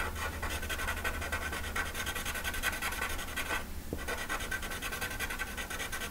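Sharpie marker shading on paper in quick back-and-forth scribbling strokes, filling in a dark area. The strokes stop briefly a little past the middle, then resume.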